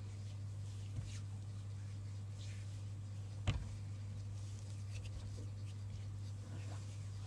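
Hands moving and brushing close to the microphone: faint scattered ticks and rustles, with one sharper tap about three and a half seconds in, over a steady low electrical hum.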